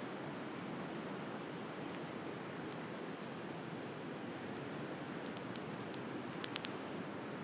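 Steady wash of sea waves with a wood bonfire crackling over it: a few sharp pops of burning firewood, most of them in the second half.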